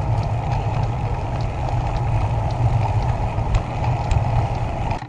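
Steady wind noise and rolling rumble picked up by a camera on a moving bicycle, with a few faint clicks. The noise drops off suddenly just before the end.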